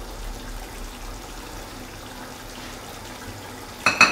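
Steady low hiss of a hot, steaming pot of chicken korma on the stove. Near the end there is a sudden metallic clatter.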